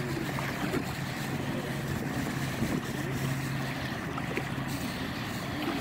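Steady low engine drone of a motorboat offshore, with wind noise on the microphone. The drone holds steady and drops away briefly near the end.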